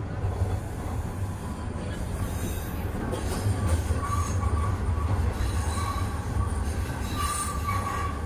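Toronto Rocket subway train running through the tunnel, heard from inside the car: a steady low rumble that grows louder after about three seconds. Over it come several brief high-pitched wheel squeals, about four, six and seven seconds in.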